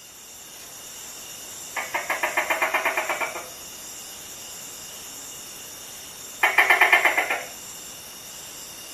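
Gecko calling in two rapid clicking chirp series, the first about a second and a half long and the second about a second, over a steady high insect-like hiss.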